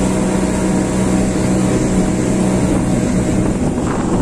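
Motorboat engine running with a steady hum, which weakens near the end as the boat nears the landing.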